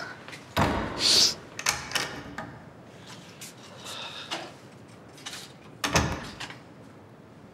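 A door being handled: a thump about half a second in, a rustle and a few clicks around one to two seconds, and another heavy thump about six seconds in.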